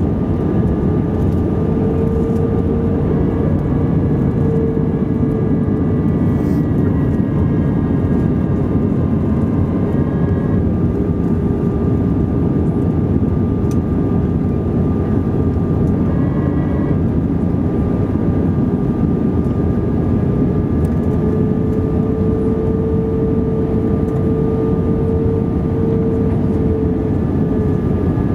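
Steady cabin noise inside an Airbus A320 airliner on approach with its flaps extended: a constant rush of airflow and engine drone, with a humming tone that swells slightly twice and a thin, steady higher tone above it.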